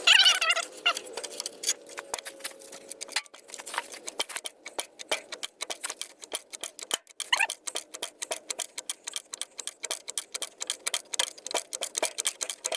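Hydraulic bottle jack being pumped under heavy load: a long run of irregular clicks and knocks, several a second, with a couple of short high squeaks.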